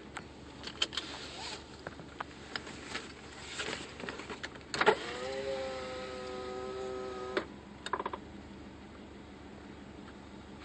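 A car's electric power window motor whines steadily for about two and a half seconds, starting with a sharp click and stopping abruptly. Scattered clicks and knocks come before it, and a quick rattle of clicks follows just after.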